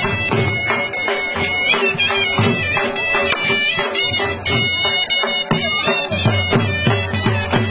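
Punjabi dhol drumming a fast, driving Ludi dance rhythm under a loud, wavering reed-pipe melody, in a steady beat of drum strokes.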